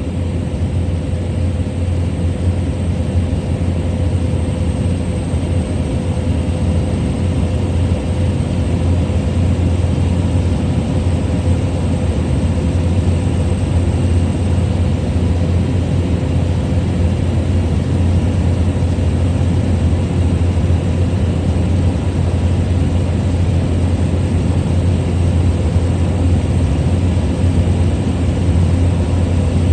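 Small plane's piston engine and propeller in cruise, heard from inside the cabin as a steady, loud low drone with a constant hum above it.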